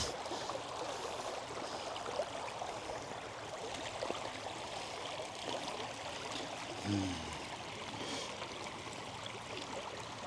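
Shallow creek water trickling and burbling steadily over stones, with a short low-pitched sound about seven seconds in.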